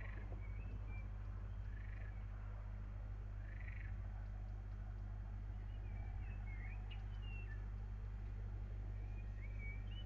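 Steady low hum with an animal call repeating about every two seconds, joined in the second half by a few short, quick-gliding bird chirps.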